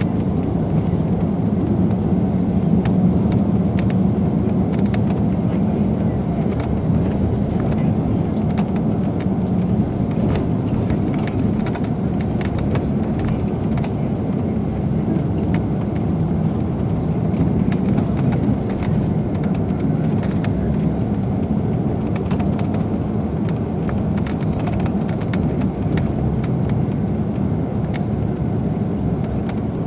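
Steady engine and road drone of a moving coach heard from inside the cabin, with scattered faint clicks.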